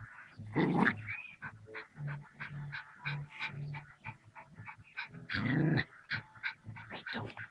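Puppy growling and yapping in short bursts, with two louder bursts about half a second in and again just past five seconds, among scattered short clicks.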